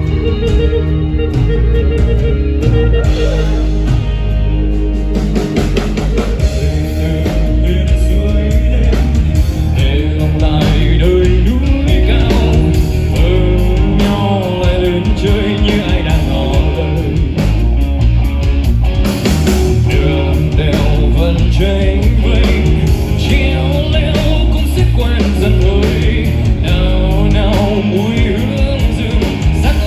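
Rock band playing live: electric guitar with bass and drums, with a bending melodic lead line over a loud, steady, bass-heavy mix.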